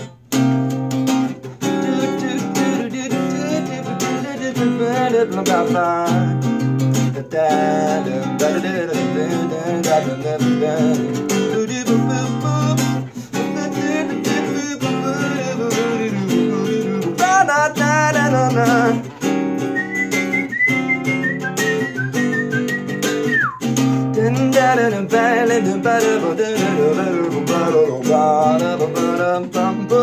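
Acoustic guitar played continuously, with a wordless vocal melody over it. Past the middle comes a single high whistled note, held for about three seconds before it drops away.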